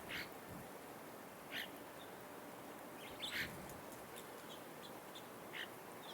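Outdoor ambience of birds chirping: a few short, sharp calls every second or two, with fainter chirps between them, over a steady background hiss.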